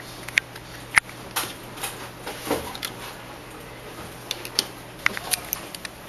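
Irregular sharp clicks and taps, about a dozen, over a steady low hum.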